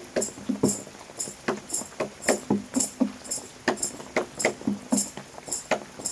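Improvised music with a steady run of percussive strikes, about three a second, each topped by a bright high rattle.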